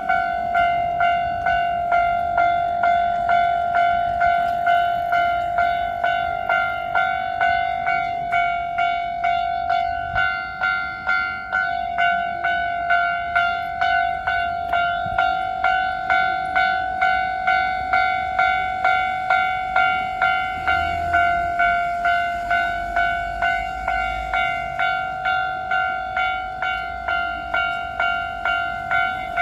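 Japanese level-crossing alarm ringing its repeated electronic ding, a little under two strokes a second, steady throughout: the warning that a train is approaching and the barriers are down.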